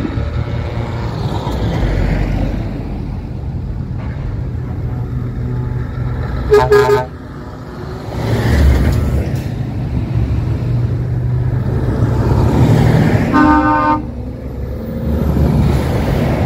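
Heavy trucks' diesel engines running as they pass slowly, among them a Scania 730 V8. Truck horns sound twice: a loud blast about six and a half seconds in, and another about thirteen seconds in.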